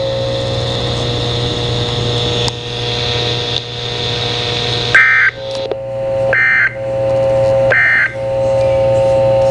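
Emergency Alert System end-of-message signal: three short electronic data bursts, each about a third of a second long and roughly a second apart, closing the weekly test. A steady buzzing tone runs under it and drops out during each burst.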